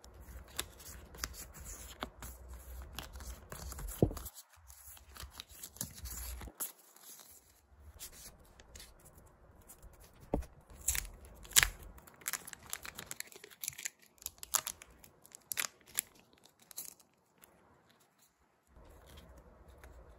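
Clear plastic photocard sleeves being handled: irregular crinkling and rustling, with sharp clicks and taps as cards are shuffled and set down.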